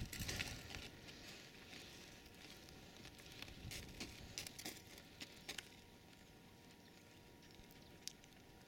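Faint scattered crunches and rustles of sheep hooves stepping on dry, stony ground close by, clustered about three to six seconds in, with a single sharp click near the end.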